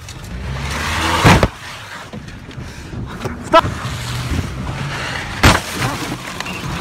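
Car running with a low, steady hum, broken by three sudden loud bangs about a second and a half, three and a half and five and a half seconds in, like blows or a slam against the car.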